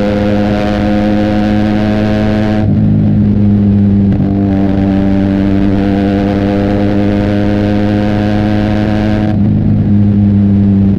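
Benelli TNT 300's 300 cc parallel-twin engine running through an Austin Racing aftermarket exhaust while riding at a fairly steady engine speed. The raspy upper edge of the sound drops out briefly about three seconds in and again near the end, as when the throttle is eased.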